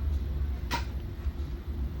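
Steady low hum, with one short scrape or click about three quarters of a second in.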